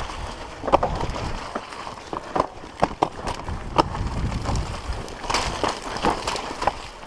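Mountain bike descending a rough dirt trail, heard from a camera on the rider: a continuous low rumble of tyres and wind on the microphone, with irregular sharp clicks, knocks and rattles as the bike hits bumps.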